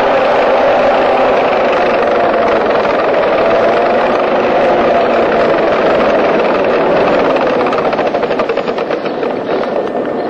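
Tracked all-terrain vehicle (vezdekhod) driving over snow, its engine and drivetrain running loud and steady with a whine that wavers slightly in pitch. Near the end a fast rattling clatter comes through as it draws close.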